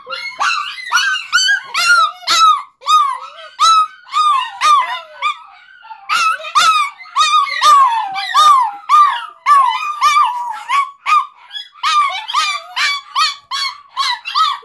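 Chihuahuas howling in response to a fire whistle: a long run of short rising-and-falling howls, two or three a second.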